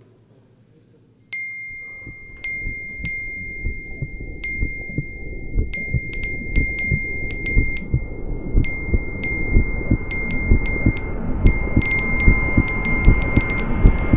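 Phone message-notification chimes: a short ding that starts about a second in and repeats faster and faster until the dings pile on top of each other. Beneath them, a low throbbing rumble swells steadily louder.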